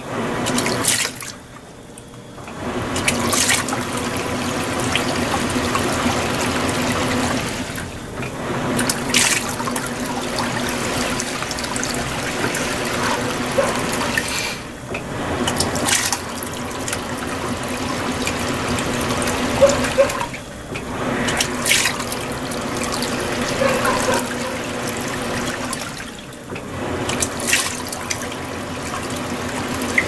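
Panasonic top-loading washing machine washing on its Super Delicate cycle: water swishing in the tub in runs of about five to six seconds, each broken by a short pause, five times over.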